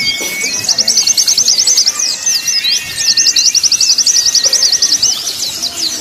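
Recorded white-eyes (pleci) singing: rapid, high chattering song strokes in two long runs, the first for about the first two seconds and the second from about three to five seconds in, over thin drawn-out whistles.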